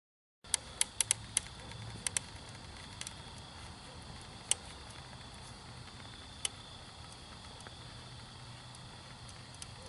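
Molten aluminum pouring into a fire ant mound, with sharp crackling pops: a quick cluster of them just after it starts, then a few scattered ones, over a steady low hum.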